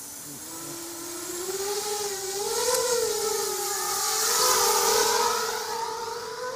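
ZMR250 racing quadcopter's motors and propellers whining in flight, the pitch climbing over the first couple of seconds and then wavering up and down with the throttle. It grows louder with a rushing hiss, loudest about four to five seconds in, then eases off.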